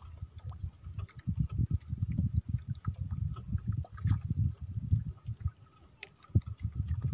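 Water lapping and slapping against the hull of a small wooden outrigger boat, in irregular low thuds with faint small splashes and clicks.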